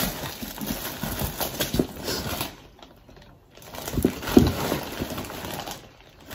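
Rummaging through a box of packaged items: plastic packaging rustling with irregular knocks and taps, and a short lull a few seconds in.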